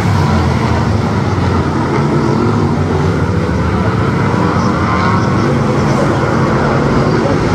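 V8 Hotstox race car's V8 engine running hard, a loud, steady drone.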